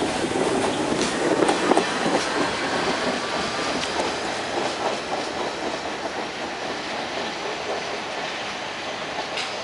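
Staten Island Railway train of modified R44 subway cars running away along the track, its steel wheels clacking over rail joints. It is loudest in the first couple of seconds, then fades steadily as the train recedes.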